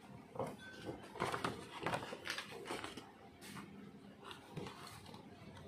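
Sheets of paper rustling and crinkling as they are handled and flexed by hand, in a run of short, irregular rustles.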